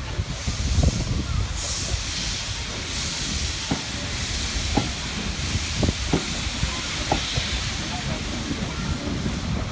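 Steam locomotive hissing steam in several surges over a low rumble, with a few short sharp knocks.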